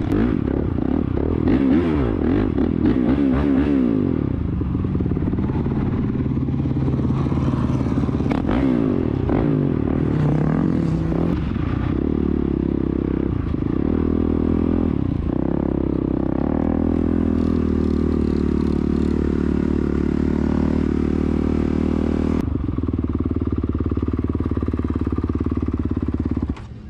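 Dirt bike engine running under way, its revs rising and falling through the first few seconds, then holding steadier.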